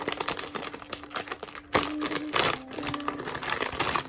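Plastic packaging of a blind-box toy crinkling and crackling as it is torn open and unwrapped by hand, with louder bursts of crackling about two seconds in.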